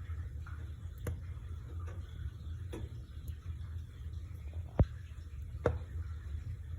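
A fire crackling: a steady low rumble of burning under scattered sharp pops and snaps, the loudest about five seconds in.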